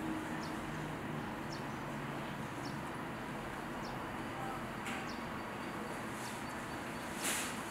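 Steady outdoor background noise with a faint, short, high chirp repeating about once a second, and a brief louder sound near the end.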